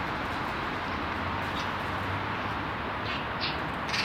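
A few short, harsh Eurasian magpie calls: one about a second and a half in, then three close together near the end. Under them is a steady background rush.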